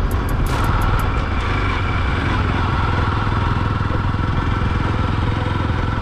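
Motorcycle engine running steadily while the bike rides slowly through a turn, heard from on the bike.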